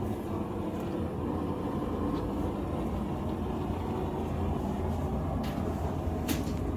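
A forge running with a steady low roar. Two sharp metal clinks come near the end.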